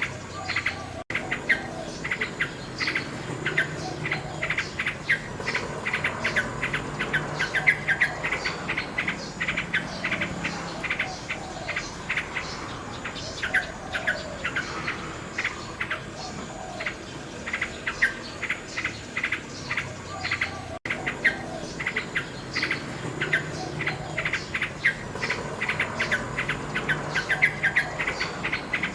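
Common nightingale singing: rapid runs of short repeated notes and trills, with insect chirping beneath. The sound cuts out for an instant twice.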